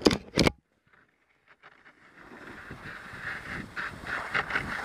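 A couple of sharp knocks, then near silence, then the hiss of skis sliding over snow with wind rush. The hiss grows steadily louder from about two seconds in as the skier picks up speed.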